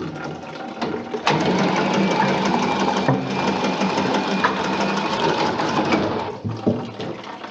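A handheld power tool running at speed against an overhead pipe with a fast, even buzz. It starts abruptly about a second in, dips briefly midway and stops after about five seconds. A couple of short knocks follow.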